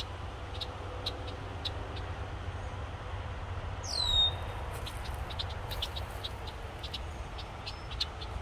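Wild songbirds calling: a scatter of short, sharp chip notes throughout, and one loud downslurred whistled call about four seconds in, over a steady low rumble.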